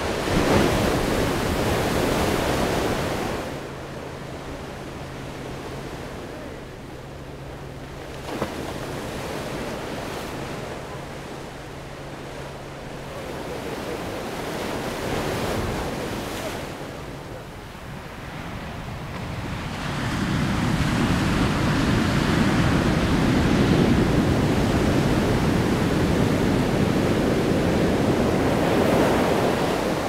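Ocean waves breaking and washing in. The surf is loud for the first few seconds, quieter through the middle with a faint steady low hum and a single brief click, and swells up loud again for the last third.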